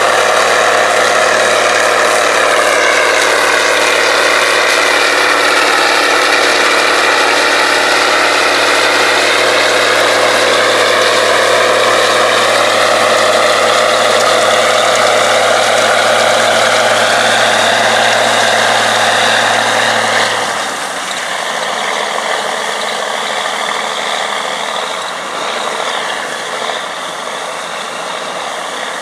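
Steiger PTA-325 articulated tractor's turbocharged six-cylinder Caterpillar 3406 diesel working steadily under load while pulling a strip-till bar. About twenty seconds in the sound drops and the deep engine note fades as the tractor draws away.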